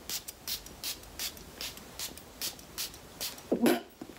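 Glass perfume bottle's pump atomizer sprayed over and over: a quick run of short hisses, about two or three a second. A brief voice sound comes near the end.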